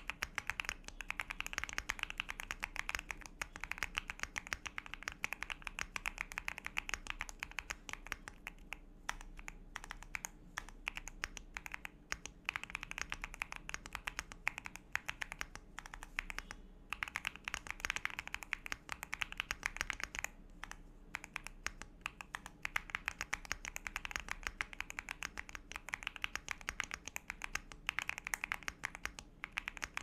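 Fast, continuous typing on an Akko ACR 68 Pro mechanical keyboard, its clear acrylic case fitted with WS Heavy Tactile switches: a dense stream of key clacks, broken by a few brief pauses.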